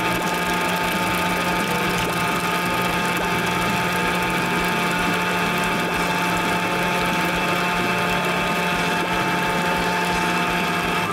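Smeg stand mixer's electric motor running steadily with an even, multi-pitched hum, beating butter and sugar while eggs are added.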